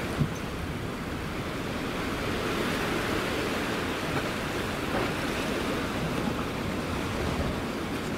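Steady wash of sea and wind noise at a harbour breakwater, with wind rumbling on the microphone. A single brief click comes just after the start.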